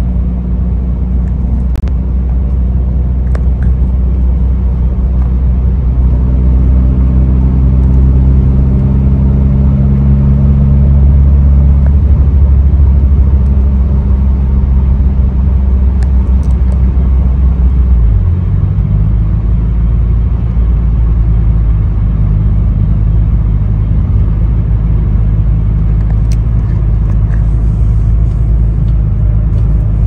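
Mitsubishi Lancer Evolution 8's turbocharged 4G63T inline-four heard from inside the cabin while driving at about 30 mph and around 2,000 rpm, with road noise. The engine note climbs slightly, then drops suddenly about two-thirds of the way through and carries on steady.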